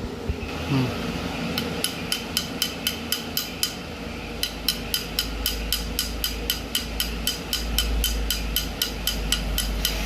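Ceiling fan running with a regular clicking knock about four times a second over a low motor hum: the knocking fault that also makes the fan jam.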